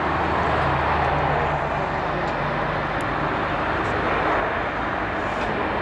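Jet noise from an Airbus A380-841's Rolls-Royce Trent 970 engines as the airliner rolls out on the runway just after touchdown: a steady rushing roar, strongest in the first second or so, with a low hum under it that fades out after about a second and a half.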